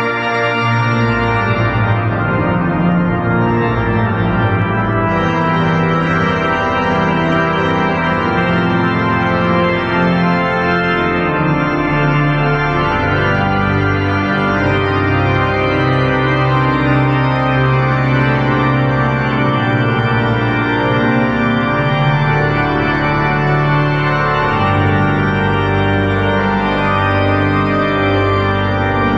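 Church pipe organ playing a closing voluntary. It plays full sustained chords, with the bass notes moving every second or two.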